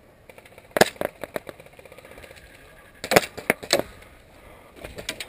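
Airsoft gunfire: a quick run of sharp cracks about a second in, then a second cluster of four about three seconds in, with a few fainter cracks near the end.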